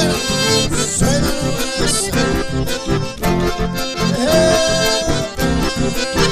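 Live dance music led by two button accordions playing together, over strummed acoustic guitar and a steady pulsing beat. A note is held for about a second in the second half.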